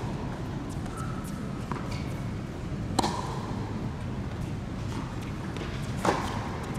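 Tennis ball struck by a racket, two sharp hits about three seconds apart over a steady low background hum.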